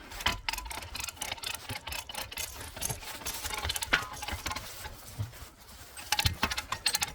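Hand-cranked come-along winch ratcheting, with irregular metallic clicks as the strap is drawn in to pull the boat onto the trailer.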